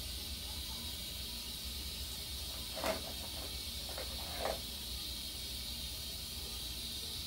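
A steady hiss over a low hum, with two or three brief soft knocks in the middle as things by a bathroom sink's faucet are handled.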